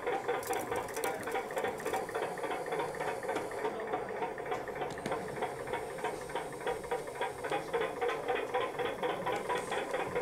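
Model crane working its grab bucket, a small mechanism running with a fast, even rhythmic chatter of several beats a second.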